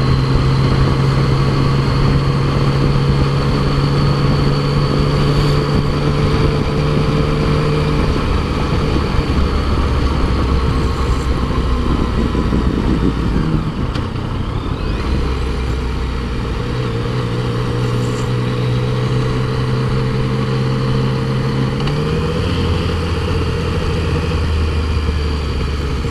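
Yamaha FJ-09's inline three-cylinder engine running at a steady cruise, heard from the rider's helmet. The engine note falls about eight seconds in, then moves between a few steady pitches, stepping up again near the end.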